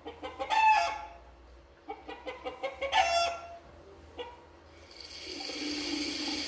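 A chicken calls twice, each call lasting about a second. About five seconds in, water from a tap starts running as a steady hiss.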